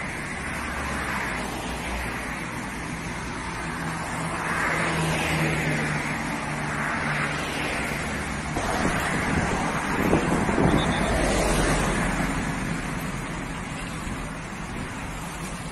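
Highway traffic passing close by: engine hum and tyre noise, swelling loudest about ten seconds in as a vehicle goes past.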